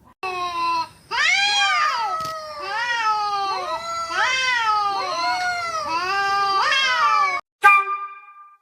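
Domestic cat meowing over and over: one short meow, then a long run of drawn-out, rising-and-falling meows in quick succession that cuts off suddenly near the end.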